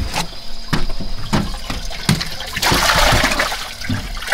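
A few knocks on the boat's metal deck, then about three seconds in a rush of splashing water lasting about a second as a channel catfish is dropped into the boat's livewell.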